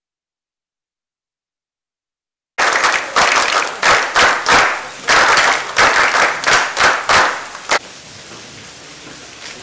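Group applause that starts abruptly, loud and uneven with many sharp claps, and stops after about five seconds, leaving a steady low hiss.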